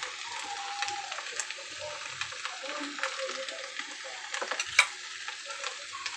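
Ghee sizzling on a pan of hot biryani rice, a steady crackling hiss. About three quarters of the way in, a steel spoon clicks a few times against the pan.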